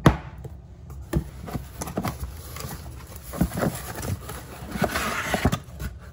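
Candle jars and a molded paper-pulp packing insert handled in a cardboard box: a series of knocks and taps, with a scraping rustle about five seconds in as the pulp tray is lifted out.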